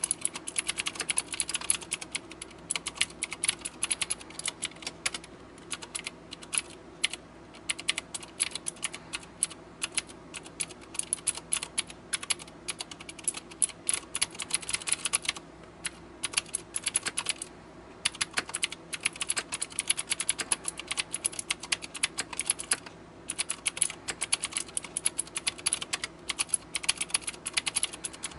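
Xenics Stormchaser mechanical keyboard with Cherry MX Blue switches being typed on quickly and continuously: a dense run of sharp, clicky keystrokes, broken by a few brief pauses.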